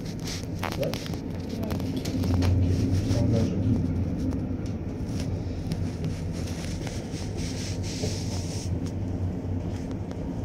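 Cabin of the Téléo tricable (3S) cable car running along its ropes: a steady low rumble and hum, with a few clicks at the start and a louder rumble about two seconds in as the carriage passes over a pylon.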